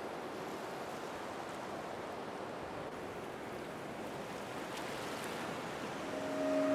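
Steady splashing of a drinking fountain's arc of water falling into its stainless steel basin. Near the end a sustained low tone fades in and grows louder.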